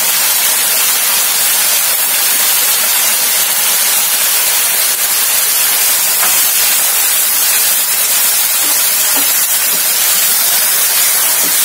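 Masala paste sizzling steadily in hot oil in a nonstick frying pan as it is fried down and stirred with a wooden spatula.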